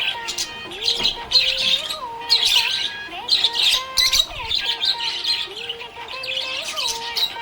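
Budgerigars chirping and warbling in quick, busy bursts, over lower whistled notes that slide up and down in pitch.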